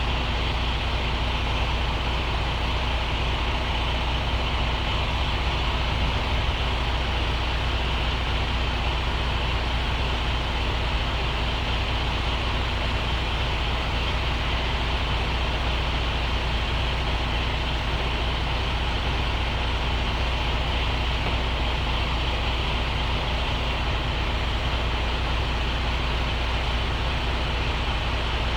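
A semi truck's diesel engine running steadily with a deep, even drone and no change in speed.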